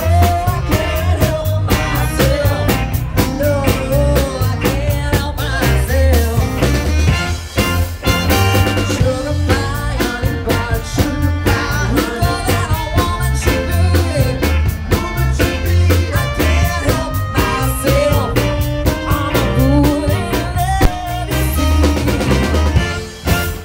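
Live soul band playing, with drums, electric bass and saxophone, and a singer over them.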